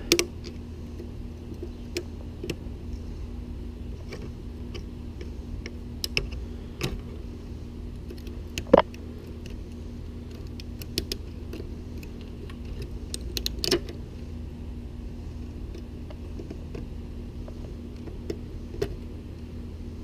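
Scattered small metal clicks and scrapes of a thin blade prying at the retaining clip on a zero-turn mower deck spindle, with one sharp click about nine seconds in. A steady low hum runs underneath.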